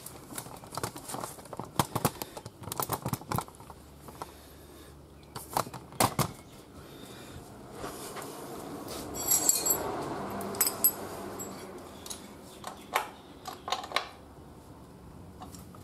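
Metal spanners and sockets clinking and clattering as they are picked up, handled and set down on a concrete floor, with a longer stretch of scraping and clinking around the middle.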